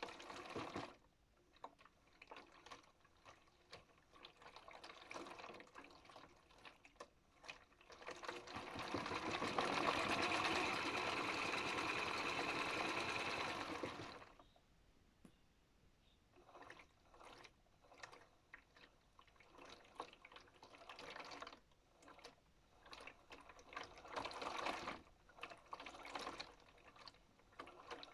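Modified Miele W1 toy washing machine working with water in it. There is short, irregular splashing and clicking, and in the middle a steady rush of water lasts about six seconds, like the machine filling, before it cuts off.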